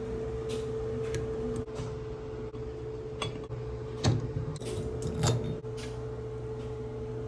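Tongue-and-groove pliers clinking against a shower valve's stem and cartridge as they are worked loose, a few sharp metallic clicks, loudest about four and five seconds in, over a steady hum.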